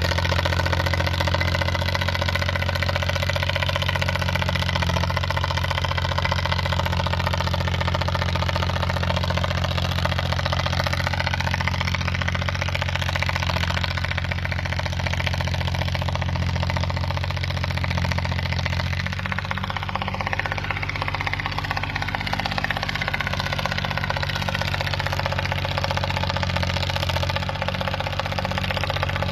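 Small bulldozer's engine running steadily at a constant speed, its note shifting slightly about two-thirds of the way in.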